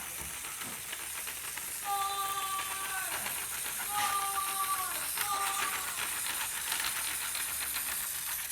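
Mini spider-bot toy running, its small motor and legs making a rapid clicking rattle. It plays an electronic tone three times, twice for about a second and once briefly near the end, each tone dropping in pitch as it stops.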